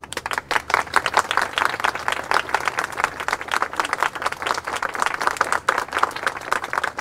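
Large crowd applauding at a rally: dense, steady clapping from many hands that starts abruptly.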